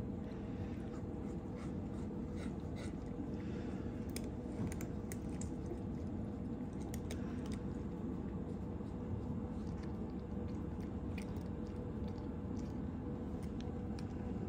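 Cat chewing and crunching small dry bits eaten from a person's hand: irregular, scattered crunching clicks over a steady low background hum.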